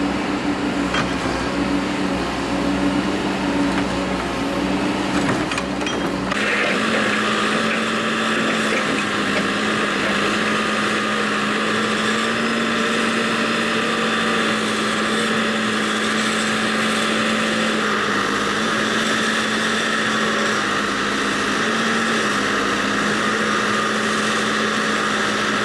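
Backhoe engine running steadily. About six seconds in its pitch shifts slightly higher and a higher-pitched whine joins in, then both hold steady.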